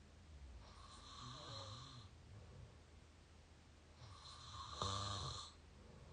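A person snoring with the mouth open, recorded up close. A breathy breath comes about a second in, then a louder snore with a low buzz a little before the end.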